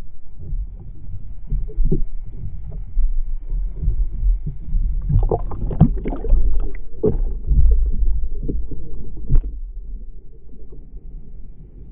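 Sea kayak rolling back upright in an Eskimo roll, heard from a camera fixed to the deck under the water: muffled sloshing and thudding, then a run of splashes as the boat and camera break the surface about five seconds in, easing to a low wash of water near the end.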